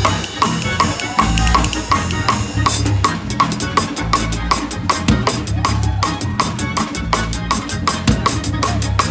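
Drum kit played in a fast gospel praise-break groove, with a quick, even run of cymbal strokes setting in about a third of the way through over a deep bass underneath.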